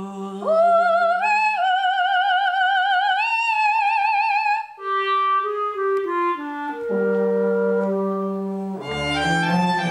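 A woman singing a high held melody with wide vibrato that climbs in steps. Lower instrumental lines then step downward over a held low note, and a fuller ensemble comes in near the end.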